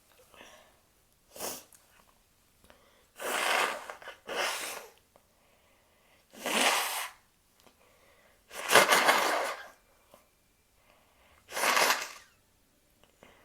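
A person sneezing about six times: short, loud bursts every two to three seconds with quiet between them, the loudest and longest about nine seconds in.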